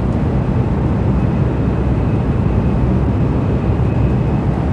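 Steady rumble of a Nishi-Kyushu Shinkansen N700S train running at speed, heard inside the passenger car, with a faint high whine coming in about a second in.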